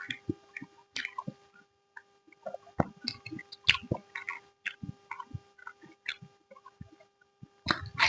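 Close-miked eating sounds: a person chewing with irregular wet mouth smacks and clicks, over a faint steady hum.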